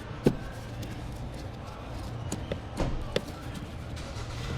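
A few sharp clicks and light knocks of parts being handled and fitted back during reassembly: one about a quarter second in, then a cluster from about two to three seconds in, over a steady low hum.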